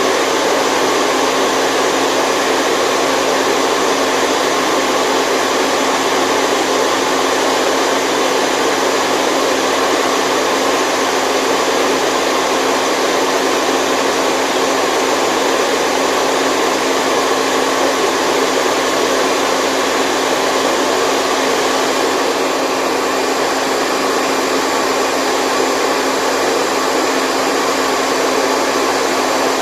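Steady white noise: an even, continuous hiss with little bass.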